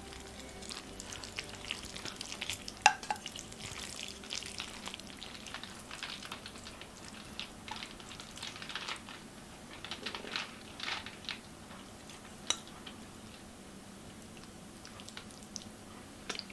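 Crisp crackling and scraping of a flaky puff-pastry pie crust being cut and served from a ceramic baking dish, with light clicks of cutlery; the crackling is densest in the first two-thirds and thins out near the end.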